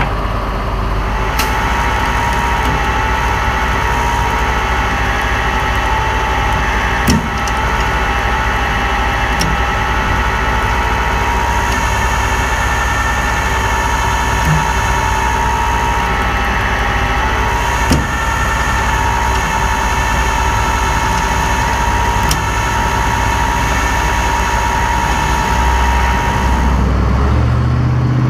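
Rollback tow truck's engine running steadily under load with a constant mechanical whine from the hydraulic winch drive, a few sharp clicks along the way. Near the end the whine fades and the engine note shifts.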